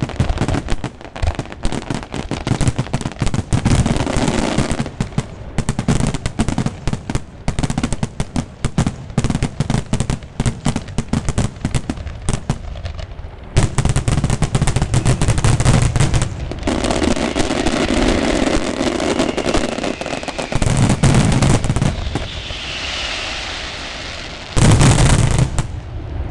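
Finale of an aerial fireworks display: dense, rapid volleys of cracking and booming shell bursts, coming in several loud waves, with a short lull about halfway and a last heavy barrage near the end.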